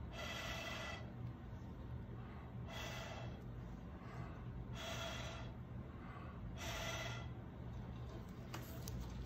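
A person breathing close to the microphone: four audible breaths about two seconds apart.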